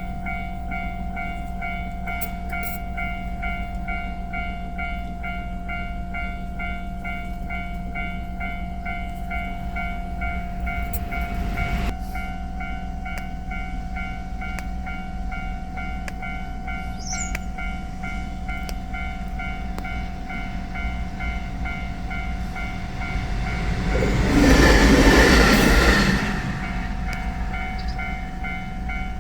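Japanese railway level-crossing alarm ringing with a steady, repeating electronic ding. About 24 seconds in, a JR Shikoku 7200 series electric train passes over the crossing, loudest for a couple of seconds, then fades.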